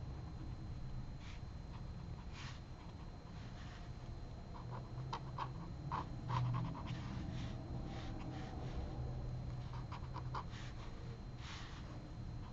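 Pen nib scratching across hot-press paper in short strokes, some in quick clusters of ticks, over a steady low hum.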